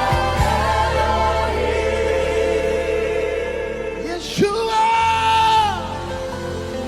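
Live gospel worship music: a sustained instrumental backing with singing over it. About four seconds in, a singer swoops up to a high note, holds it for about a second and a half, then slides down.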